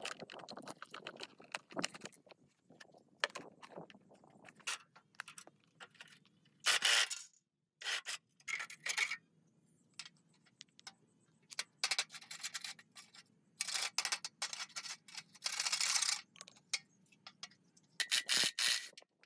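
Hand work on metal parts: scattered clicks and clinks, with six short bursts of scraping or rubbing noise, the longest about a second.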